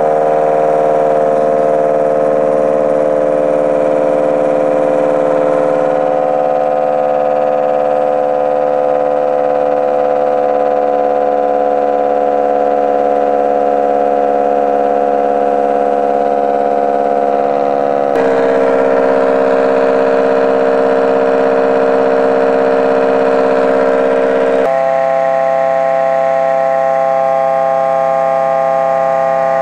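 Homemade pulse motor running at low speed, its pulsed drive coils making a loud, steady whining hum. The pitch drifts slightly, then jumps suddenly about three times.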